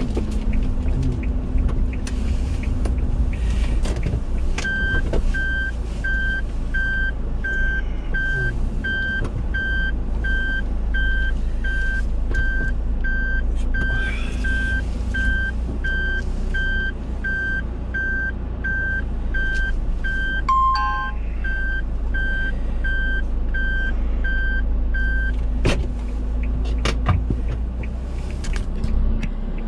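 A car's reversing warning beeping at an even pace for about twenty seconds over a steady low engine and road rumble. Partway through the beeping comes a short two-note chime, the second note lower.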